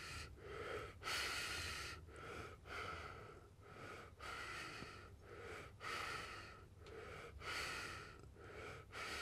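A person breathing audibly close to the microphone: steady, even in-and-out breaths, roughly one full breath every second and a half.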